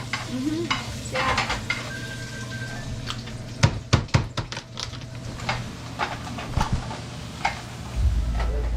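Kitchen clatter: sharp knocks of utensils against cookware or a cutting board, with a quick run of them a little over three and a half seconds in and lighter clicks after, over a steady low hum.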